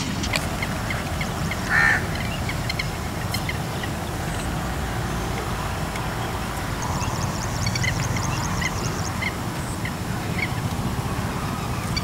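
Birds calling: many short high chirps, one louder, brief call just under two seconds in, and a fast high trill in the second half, over a steady low rumble.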